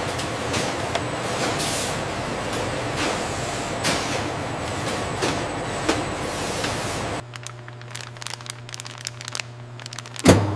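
Factory machinery: a loud steady rushing hiss. About seven seconds in it drops to quieter rapid clicking over a low hum, and a sharp hiss bursts near the end.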